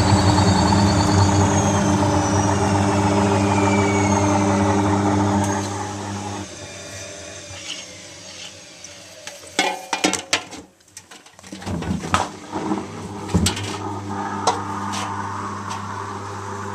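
Zanussi washing machine at the end of a spin: the motor and drum run with a steady hum and falling whines as they slow, then drop away sharply about six seconds in. Scattered clicks and knocks follow, with a quieter low hum carrying on.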